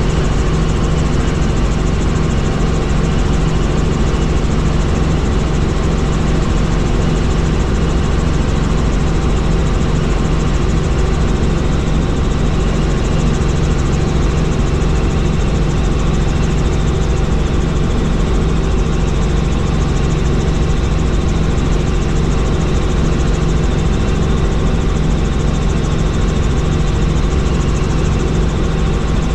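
Helicopter in flight, its engine and rotor running steadily: a constant low hum under loud, even noise, unchanging throughout.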